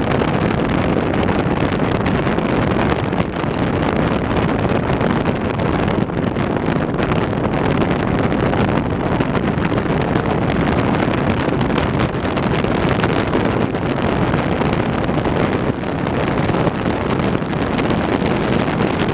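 Steady, loud rush of wind buffeting the microphone on an open flex-wing microlight trike in flight.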